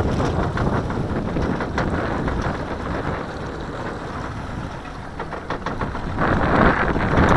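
Wind buffeting the microphone over choppy water, easing off in the middle and gusting up hard again about six seconds in.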